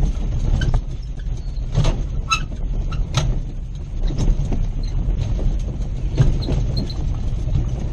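A 4x4 driving over a rough grass track while towing a kayak trailer: a steady low rumble, with irregular clanks and rattles as the trailer bumps along.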